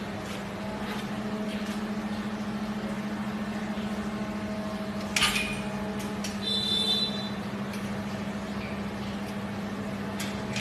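A steady low mechanical hum, with a sharp click about five seconds in and a brief high chirp a second later.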